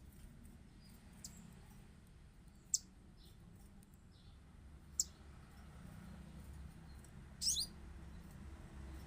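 Short, sharp, high-pitched chirps from a wild-caught sogon songbird, a few seconds apart: single notes about a second in, near three seconds and at five seconds, then a quick run of several together near the end. A faint low hum lies underneath.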